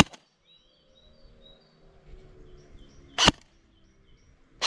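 Specna Arms M4 CQB airsoft electric gun firing three single shots through a chronograph: one at the start, one about three seconds later, and one just over a second after that. Faint birdsong chirps in between.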